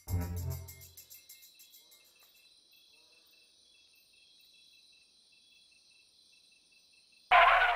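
Faint night ambience of crickets chirping in an even, repeating pulse, as a low sound from the previous scene dies away in the first second. Near the end a short, loud pitched sound cuts in for about half a second.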